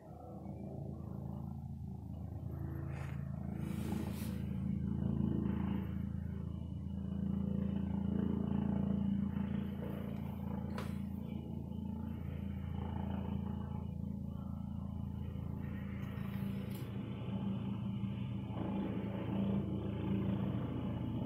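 Helicopter hovering high overhead: a steady low drone that swells slightly in level now and then.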